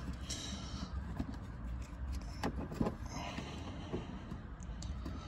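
Faint rustling and light scattered clicks of a thin cable being pushed behind plastic car interior trim, over a low steady hum.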